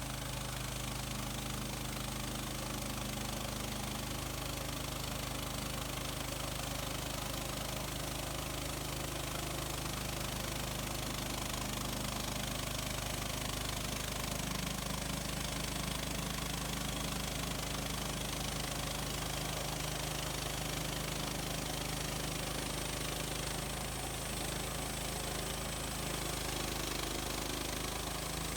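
Engine of an HM130 Max portable bandsaw sawmill running steadily.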